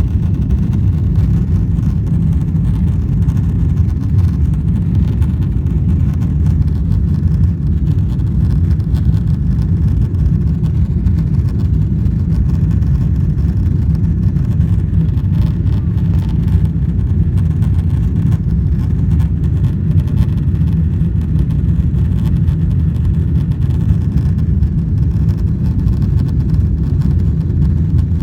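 Steady low rumble inside an airliner's cabin, unchanging throughout.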